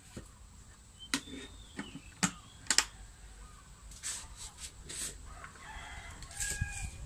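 A rooster crowing and chickens clucking, with several sharp clicks over the first three seconds.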